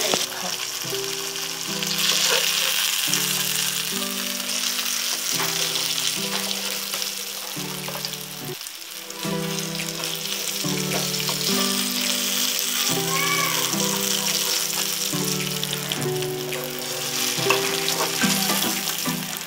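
Fish pieces sizzling steadily as they fry in hot oil in a steel wok, with a spatula scraping now and then. Background music with a low stepping melody plays over it.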